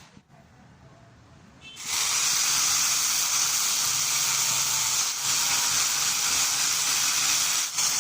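A loud, steady hiss sets in about two seconds in and keeps going, with two brief breaks: one about five seconds in and one near the end.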